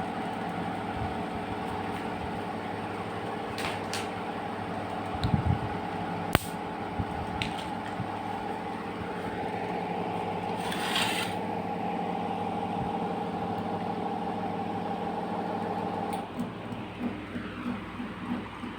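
Electrical hum of a ceiling fan motor, steady with several tones, typical of a fan running on UPS/inverter power. About 16 s in the hum changes to a pulsing beat about three times a second. There is a sharp click about six seconds in.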